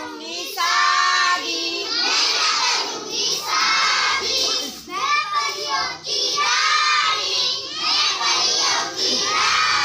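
A group of young children chanting and singing a rhyme together in short, loud phrases of about a second each, as they play an action song-game.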